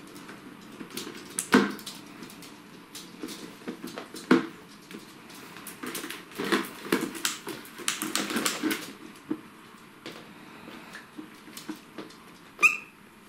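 Pomeranian puppies scuffling in and around a clear plastic storage box on a laminate floor: irregular knocks, scrapes and clatter of the plastic, loudest about a second and a half and four and a half seconds in and busiest in the middle. A short high squeak comes near the end.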